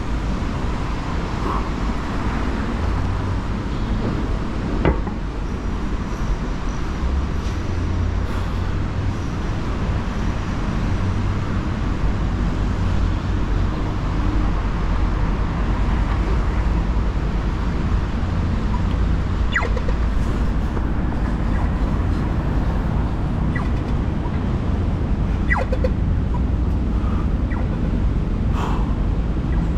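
Steady city road traffic: a continuous low rumble of passing vehicles, with a few brief clicks along the way.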